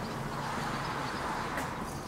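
A vehicle passing: its noise swells through the middle and eases off near the end, over a steady low engine hum.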